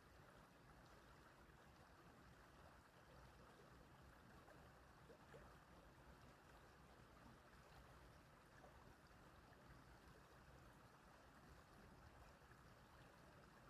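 Small stream flowing, a faint, steady rush of water.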